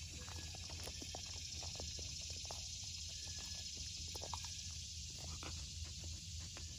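A dog panting steadily, over a constant high-pitched hiss.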